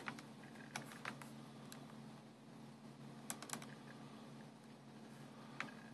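Clicks from a laptop being operated: about eight short, irregular clicks, bunched in the first two seconds, a pair a little after three seconds and one near the end, over a faint steady low hum.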